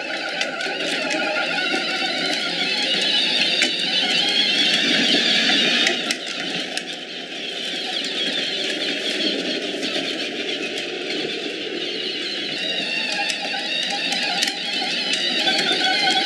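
A child's battery-powered ride-on toy ATV driving over brick pavers: a steady whirring from its electric motor and gears, with the hard plastic wheels rolling noisily over the bricks.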